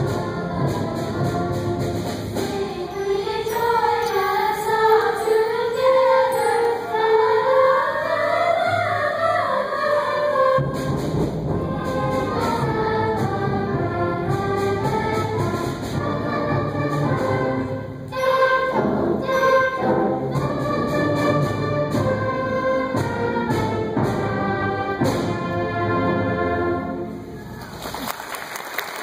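School concert band with brass playing a piece alongside a small group of singers, the music ending about a second and a half before the end. Applause begins right after.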